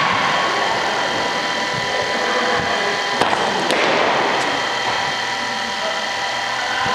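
Steady motor-like hum with several fixed tones, and a single sharp crack of a cricket bat hitting a ball about three seconds in.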